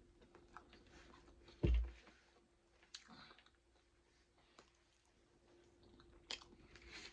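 Close-miked chewing and crunching of fried fish, with small wet mouth clicks. A single heavy low thump sounds about a second and a half in, the loudest thing here.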